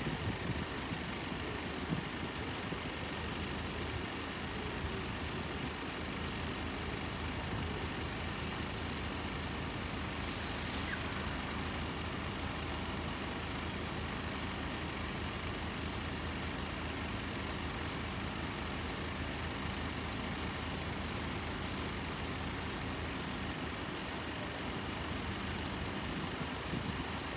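A steady, even engine drone with a faint high whine over it.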